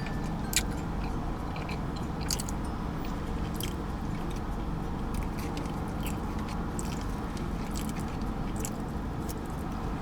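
A person chewing a mouthful of fried chicken sandwich on a glazed donut bun, with scattered small wet mouth clicks over a steady low background hum.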